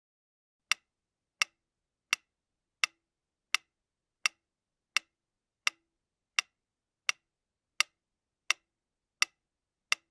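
Wind-up mechanical metronome ticking at a steady tempo: sharp, even clicks about 0.7 s apart (roughly 84 beats a minute). The ticking starts after a short pause.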